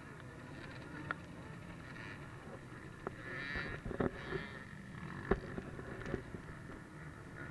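Many off-road motorcycle engines running together at a race start line, a steady low rumble, with a few sharp clicks and brief snatches of crowd voices.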